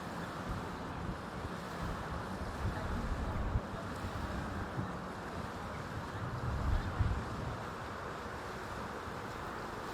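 Steady wash of waves on a beach with wind buffeting the microphone, the rumbling gusts swelling twice, around three and seven seconds in.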